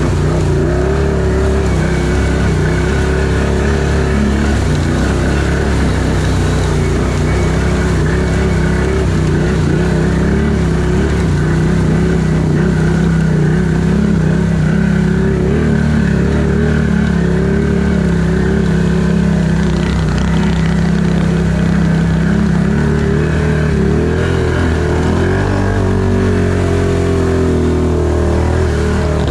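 Can-Am ATV engine running steadily under load while driving through deep muddy water, with water and mud sloshing around the machine. The engine note shifts near the end as the revs change.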